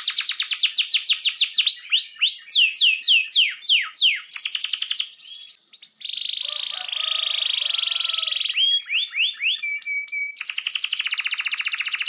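Domestic canary singing a long, varied song: fast runs of repeated downward-sweeping notes, a short break about five seconds in, then a very rapid rolling trill, a few separate sweeps and a brief held note, and another rapid trill near the end.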